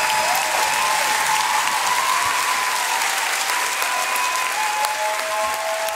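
Large theatre audience applauding steadily and loudly, with scattered whoops over the clapping.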